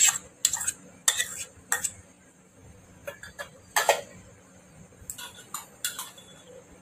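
A small ceramic bowl tapping and clinking against a steel plate as chopped onion is tipped out onto the other vegetables, in a run of about ten short, sharp knocks at uneven spacing.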